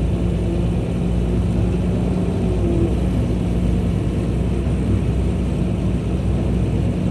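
Excavator diesel engine running steadily, a loud, even low drone with a constant hum.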